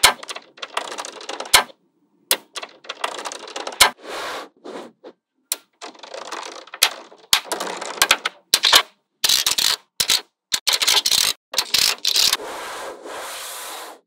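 Small magnetic balls clicking and rattling as fingers snap rows onto a sheet of magnet balls and press and rub across its surface. Sharp clicks alternate with short stretches of rattle, which cut off abruptly several times.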